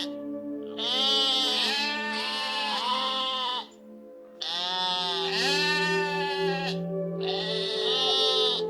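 Several long, wavering bleats from a sheep-like farm animal, with a short pause about four seconds in, over background music with held notes.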